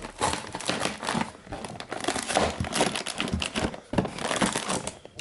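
Cardboard LEGO set box being opened by hand: an irregular run of quick crackles and scrapes as it is pulled open.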